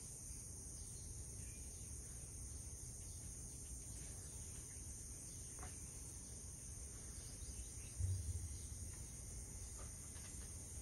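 Steady high-pitched insect drone, such as crickets, over a low background rumble, with a single dull thump about eight seconds in and a few faint ticks.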